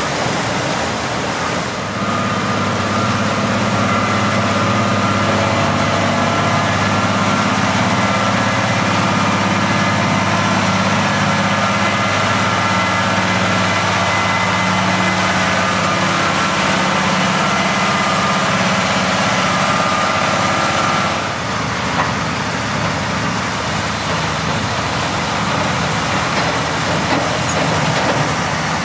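Heavy truck engine running steadily under load as the truck crawls through mud on rubber tracks over its tandem rear dual wheels, with a higher whine over the engine note. About three quarters of the way through the sound turns noisier, with a single knock.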